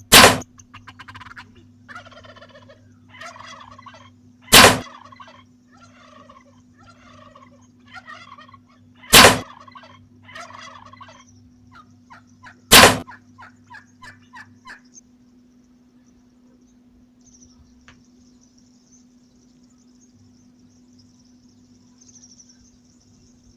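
Wild turkeys gobbling and calling in a run of short, broken calls for about the first eleven seconds. Four loud, sharp cracks come at even intervals of about four and a half seconds. After that there is only a faint steady hiss.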